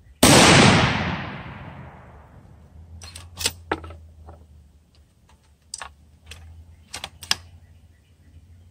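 A single rifle shot from a Savage bolt-action in .243 Winchester firing a 38.6-grain Varget handload, its report ringing away over about two seconds. A few seconds later comes a string of sharp metallic clicks as the bolt is worked to eject the case and chamber the next round.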